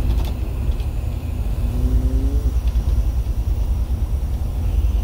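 Bus engine and road noise heard from inside the cabin while driving: a steady, heavy low rumble.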